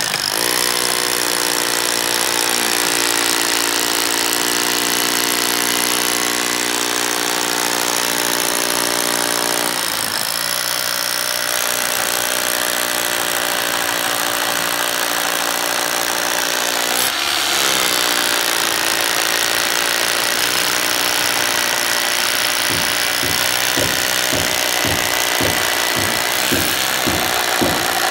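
Bosch Bulldog rotary hammer drilling holes for anchor bolts, running steadily. Its pitch sags and recovers twice as the bit loads up. Over the last few seconds it pulses at about two beats a second.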